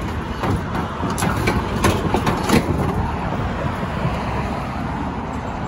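Steady low rumble of motor vehicle noise, with a few light knocks between about half a second and two and a half seconds in.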